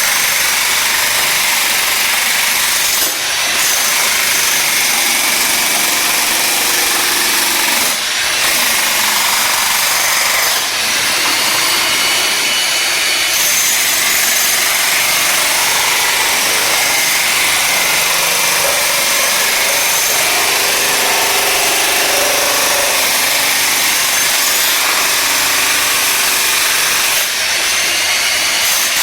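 Cheap Chinese electric jackhammer hammering continuously as it breaks up glued-down flooring and tile, with a few brief pauses.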